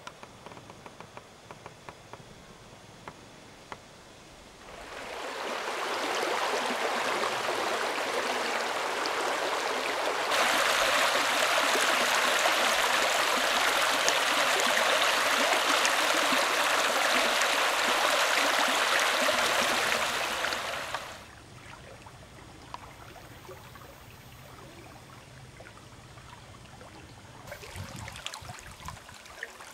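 A shallow stream rushing over stones: a steady watery rush that swells in about five seconds in, grows louder about halfway through and drops away suddenly about two-thirds of the way through, leaving only faint ticks and clicks.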